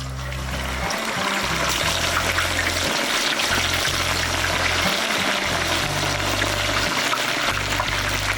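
Water running steadily, a continuous splashing hiss, over background music with a stepping bass line.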